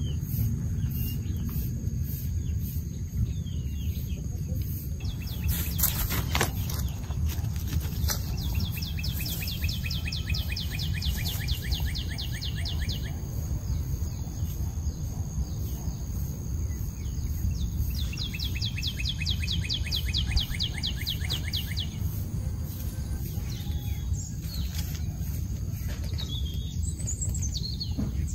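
Birds calling outdoors: two long, rapid trills of several seconds each, about ten seconds apart, each sliding slightly down in pitch, with a few short chirps near the end, over a steady low rumble.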